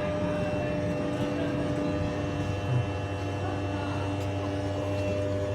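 Passenger lift in motion: a steady electric drive hum with several held tones that does not change.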